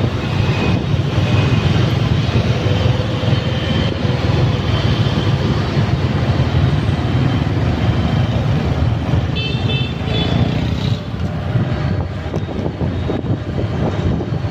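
Motorbike street traffic heard from a moving motorbike: a steady low rumble of engines and road noise, with a short horn beep about ten seconds in.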